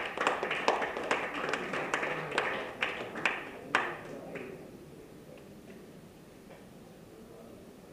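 Audience applauding, with a few sharp close claps standing out, dying away about four seconds in.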